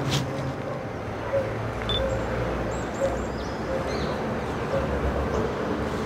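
Outdoor ambience: a steady rumble of distant traffic, with a few faint, high bird chirps about halfway through.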